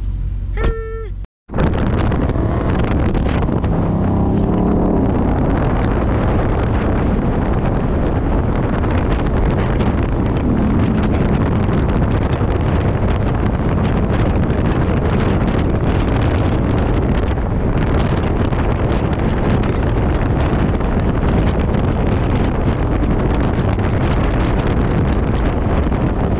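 Steady, loud wind rush on a camera mounted on the outside of a moving car, with road and engine noise underneath; it begins after a brief dropout about a second in.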